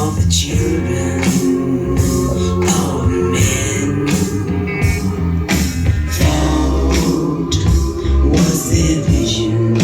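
Early-1970s rock song playing at full level: electric guitar, bass and drums under a male singing voice, played back from a vinyl record dubbed onto a metal cassette tape.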